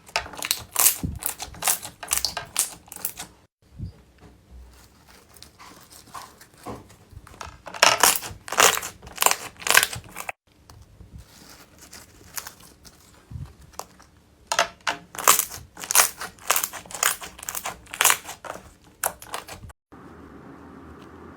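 Slime being squeezed and pressed, giving rapid crackling pops and clicks in three runs split by brief breaks. Near the end this switches to a steady hiss.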